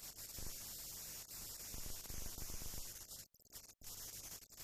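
Steady hiss and crackle of a blank film soundtrack with a low hum, dropping out briefly twice a little over three seconds in; no aircraft engine is heard.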